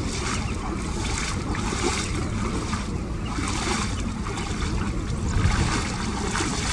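Wind rumbling on the microphone over water sloshing, a steady noise with a hiss in the highs that swells and fades irregularly.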